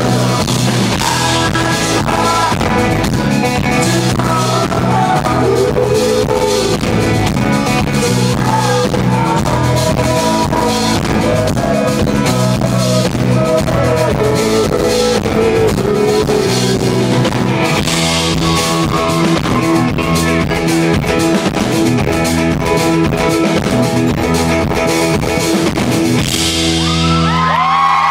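Live rock band playing: a man singing over strummed acoustic guitar and a drum kit.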